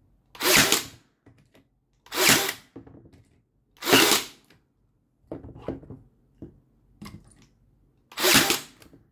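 Battery-powered WORX nail gun firing four times, each a short, loud whirring shot driving a nail into wood, with light handling clicks in between.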